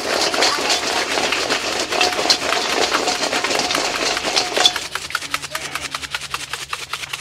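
Crispy fries tossed and shaken in a stainless steel bowl as they are seasoned: a dense rattle of fries against the metal, with the bowl ringing faintly. About five seconds in it gives way to a quieter, rapid run of light ticks.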